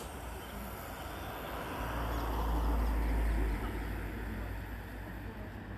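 A low background rumble with hiss that swells to its loudest about two to three seconds in, then fades.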